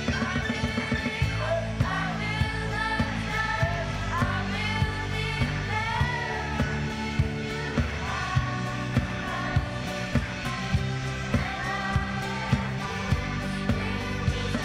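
Children's choir singing an upbeat worship song in unison, backed by a band with keyboard, bass and a steady drum beat.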